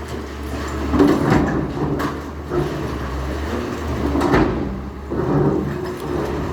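Demolition machinery running with a steady low drone, under irregular knocks, clanks and scrapes of debris being broken and moved; the sharpest knocks come about a second in and near the middle.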